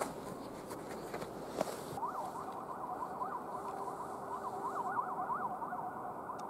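A siren-like electronic warbling tone, sweeping rapidly up and down over and over. It starts about two seconds in, and the speed of the sweeps changes as it goes.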